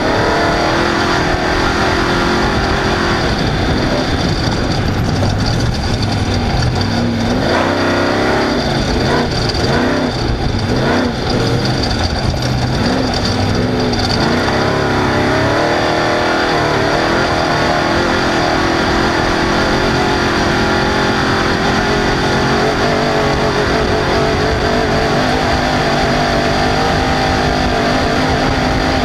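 Off-road race vehicle's engine running at high revs, its pitch rising and falling over and over as the throttle comes on and off.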